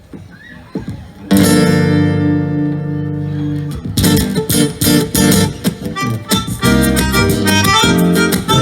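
Instrumental opening of a bossa nova: a long held chord comes in about a second in, then rhythmic acoustic guitar picking starts at about four seconds.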